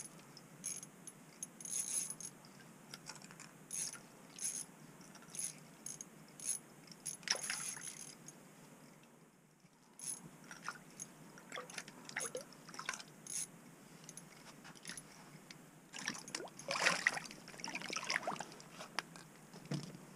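Scattered soft clicks, rustles and light splashing of water as a walleye is drawn up through the ice hole and grabbed by hand, loudest about 16 to 18 seconds in.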